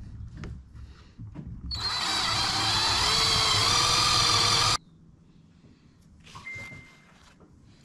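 Cordless drill running for about three seconds, spinning the input shaft of a rebuilt Tuff Torq K46 transaxle to turn its axles as a bench test; the drill's whine starts a little under two seconds in and cuts off suddenly.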